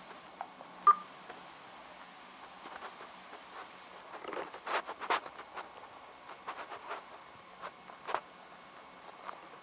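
LG G2 phone loudspeaker giving off a steady high hiss, the KitKat 4.4.2 audio fault, which comes on with a short beep about a second in and cuts off suddenly about four seconds in. Scattered light clicks and taps follow.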